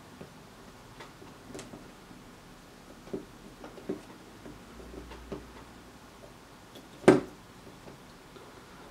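Small clicks and taps of a metal helping-hands clamp being adjusted to grip a circuit board, with one much louder sharp click or knock about seven seconds in.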